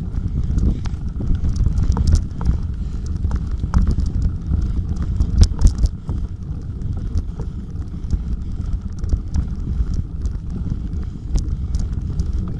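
Bicycle riding over a rough off-road track: a steady low rumble of bumps and wind on the microphone, with frequent sharp rattling clicks and knocks.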